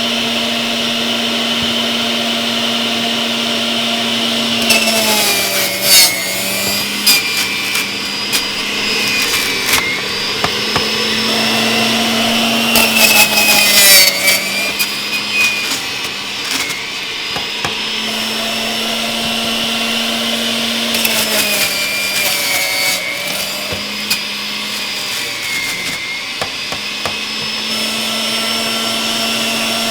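Breville centrifugal juicer's motor running while celery stalks are pushed down onto its spinning cutting disc. Several times the motor's pitch sags under the load, with crackling as the stalks are shredded, then climbs back to its steady running pitch.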